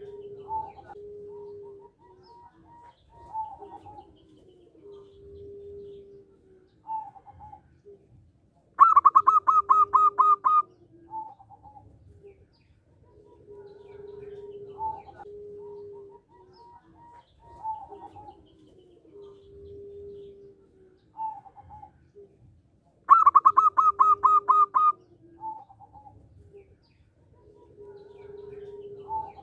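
Zebra dove (perkutut) singing. Twice it gives a loud, rapid run of staccato notes, about fourteen seconds apart, and between runs softer drawn-out low coos and short higher notes repeat.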